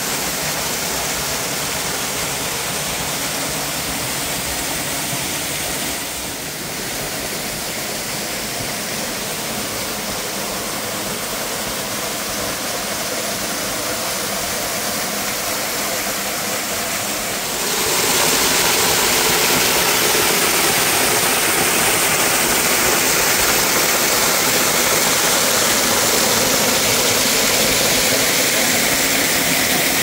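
Narrow waterfall pouring into a rocky plunge pool: a steady rush of falling and splashing water, which steps up in loudness about two-thirds of the way through.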